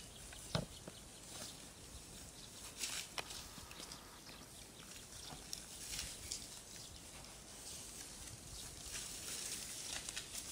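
Water buffalo grazing: faint, irregular crisp crunches and rustles of grass being torn and chewed among dry stubble, with one sharper snap about half a second in.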